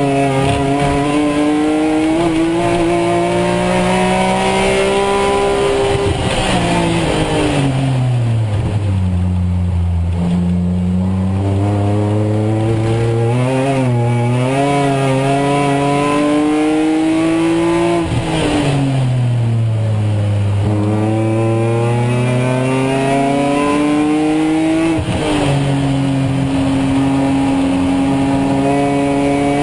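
BMW Z4 M Coupé race car's straight-six engine heard from inside the cockpit at racing speed: the engine note climbs through the revs under full throttle, falls away twice under braking and downshifting, and drops sharply at an upshift about 25 seconds in before climbing again.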